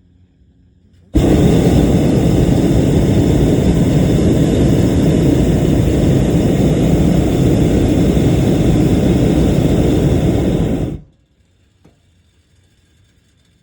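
Loud, steady rushing noise, heaviest in the low end, that cuts in about a second in and stops abruptly about ten seconds later.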